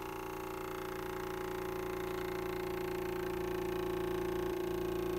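Homemade tin-can thermoacoustic engine with glass beads running: one steady hum that slowly grows louder as the oscillation builds.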